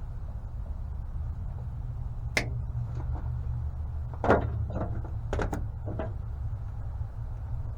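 A few sharp clicks and knocks from hands and tools working on a truck's wiring harness: one a little over two seconds in, then a quick cluster in the middle, the loudest of them about four seconds in. Under them runs a steady low hum.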